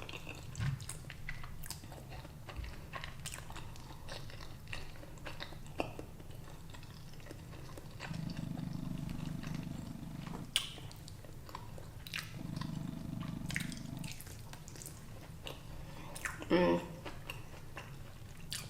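A person chewing and biting food close to the microphone, with scattered soft clicks, smacks and light crunches.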